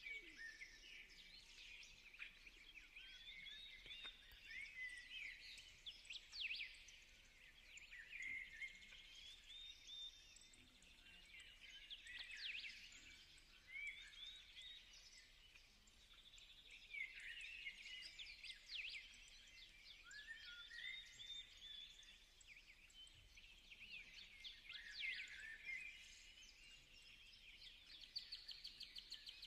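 Faint birdsong: small birds chirping and twittering in quick, high calls and trills that come and go with short pauses.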